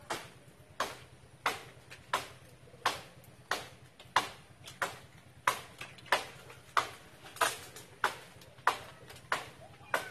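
A hand tool cutting into a tree branch: a steady run of sharp strokes, about three every two seconds, each dying away quickly.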